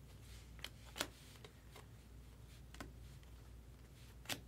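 Topps Chrome trading cards being handled and flipped through by hand: about six quiet, sharp clicks and ticks, the loudest about a second in, over a faint low hum.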